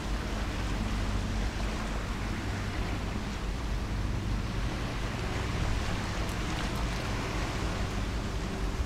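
Steady low engine hum from a distant tugboat towing a loaded barge, under a constant wash of wind on the microphone and water noise.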